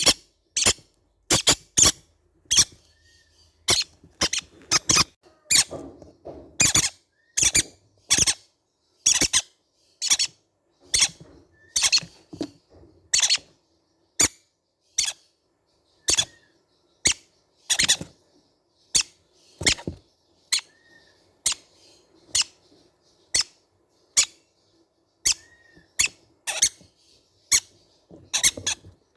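Baby green-cheeked conures calling: a steady run of short, sharp, high-pitched squeaks, about one and a half a second, with a few softer short chirps between them.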